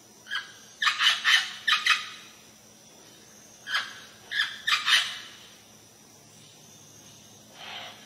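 Amazon parrot giving a series of short calls: about six in quick succession in the first two seconds, another four a couple of seconds later, then one fainter call near the end.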